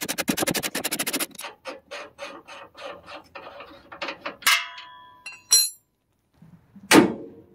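Ratchet wrench clicking quickly as it backs a nut off a leaf-spring mount bolt; the clicks slow and thin out over the next few seconds. Then come two sharp metal clinks that ring briefly, and a loud knock near the end.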